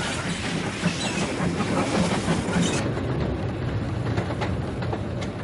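Narrow-gauge steam locomotive and its train running: the exhaust beats about three times a second over a rumble of wheels and carriages, settling into a steadier rumble about halfway through.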